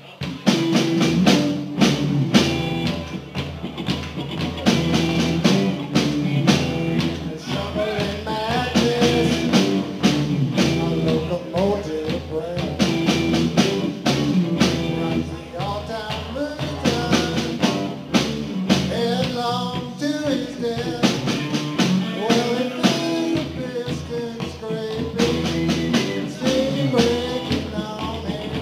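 Live rock band playing: electric guitars, bass and drum kit come in together just after the start, and a man sings over them from about eight seconds in.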